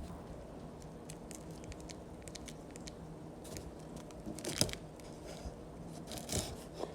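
Packaging on a shipping box being picked at and torn open by hand: a run of small ticks and crackles, then a few louder tearing rips.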